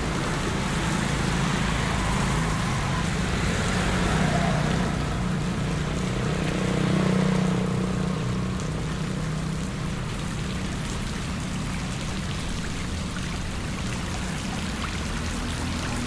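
Steady rain and running floodwater, with a vehicle's engine hum that swells and is loudest about seven seconds in, then fades.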